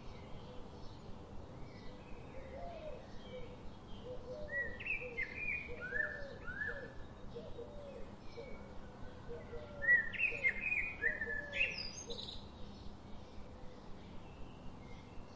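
Wild birds chirping and calling, loudest in two clusters of quick phrases about five seconds in and again around ten seconds in, with a lower short call repeated about twice a second through the middle, over a faint steady outdoor background.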